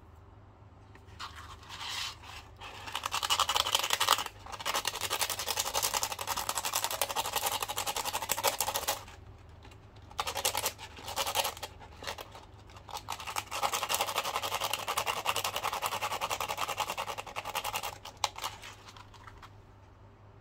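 A circuit breaker's small metal contact strip rubbed quickly back and forth on sandpaper, scraping off the burnt black deposit that was making the contact intermittent. Two long spells of fast scraping strokes, broken about halfway by a short pause and a few shorter strokes.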